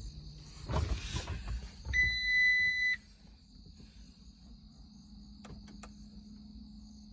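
A one-second steady high electronic beep from the 2015 New Holland L230 skid steer's dash warning buzzer, about two seconds in. A short rattle comes just before it, and a low steady hum follows. The machine has power but does not crank. Crickets chirp steadily throughout.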